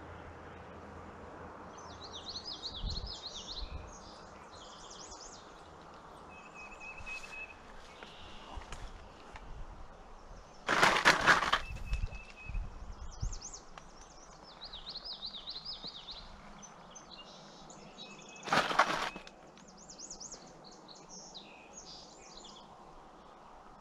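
Songbirds singing repeated warbling phrases over the steady rush of creek water. Two short, loud noisy bursts break in, about ten and eighteen seconds in.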